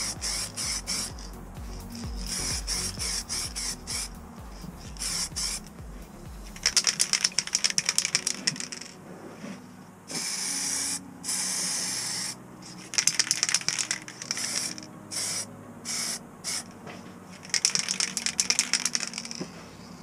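Aerosol spray paint can spraying in several short bursts, the hiss broken into quick pulses. A smoother, steadier spray comes about ten seconds in.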